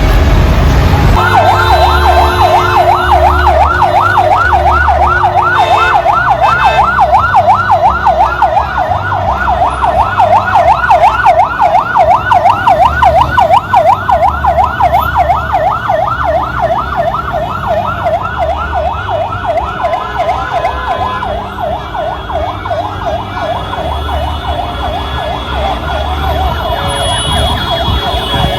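Emergency vehicle siren in a rapid yelp, its pitch sweeping quickly up and down over and over. It starts about a second in and grows somewhat fainter in the last third.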